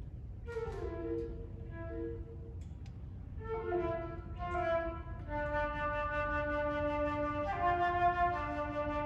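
Instrumental music: short melodic phrases of pitched notes, then from about halfway through several notes held together in a sustained, swelling chord.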